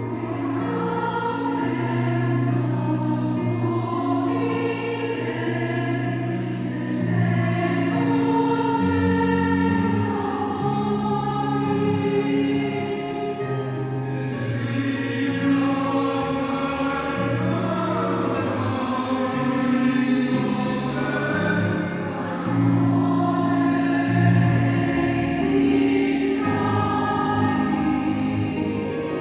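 Choir singing in parts, holding long sustained chords that move from one to the next.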